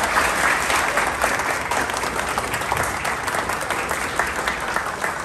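Audience applauding, a dense patter of many hands clapping that slowly tapers off.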